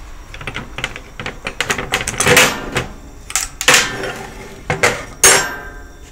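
Rapid clicks and metal-on-metal clatter of a spanner and steel linkage parts being worked off a cast-iron Powerglide transmission, with three loud clanks as parts are put down, about two, three and a half, and five seconds in, the last ringing briefly.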